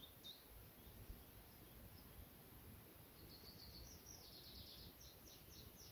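Near silence with a small bird calling faintly: a series of short, high, falling notes at about four a second, starting about three seconds in.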